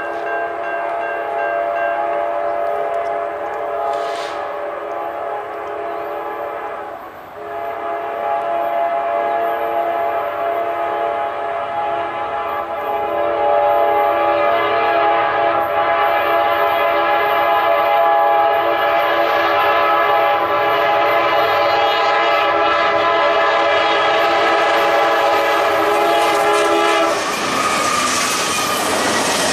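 Norfolk Southern diesel freight locomotive's multi-chime air horn blowing long blasts as the train approaches, with a short break about seven seconds in. Near the end the horn cuts off as the lead locomotives pass close by, and the rumble of engines and wheels takes over.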